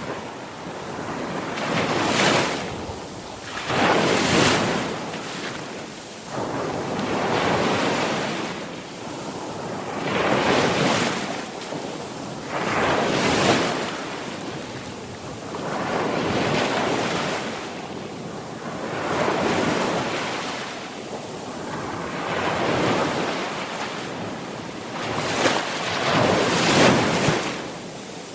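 Sea waves breaking and washing in, each one swelling up and falling away every two to three seconds.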